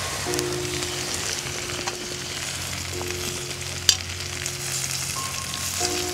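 Vegetables sizzling as they fry in a metal pan held over an open wood campfire, with a steady hiss and light crackling, and one sharp click about four seconds in.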